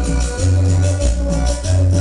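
Cumbia played loud through a sonidero's large sound system: a heavy bass line under a steady percussion beat of about four strokes a second.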